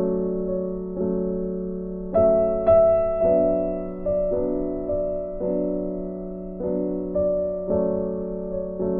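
Background music on a piano or electric piano: soft sustained chords struck roughly once a second, each fading before the next.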